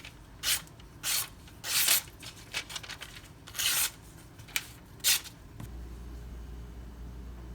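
Freshly stropped 154CM knife edge slicing through paper in about six short, hissy strokes, a cut that has just been judged clean. About five and a half seconds in, the strokes stop and a low steady hum starts.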